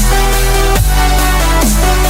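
Electronic dance background music, dubstep-style, with a heavy bass and pitch drops repeating a little under once a second.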